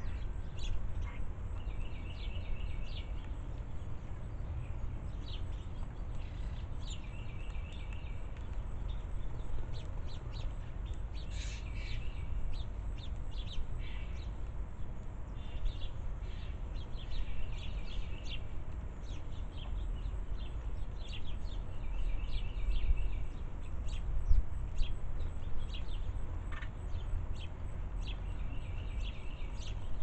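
Sparrows at a seed feeder chirping over and over, short calls and chattering trills coming in clusters every few seconds. A steady low rumble runs underneath.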